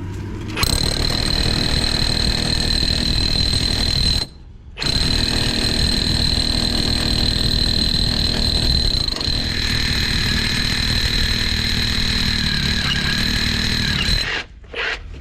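Cordless SDS Max rotary hammer drilling through brick with a large masonry bit sized for 3/4-inch PVC, a steady high motor whine over rough hammering. It stops briefly about four seconds in, then runs again for about ten seconds before stopping.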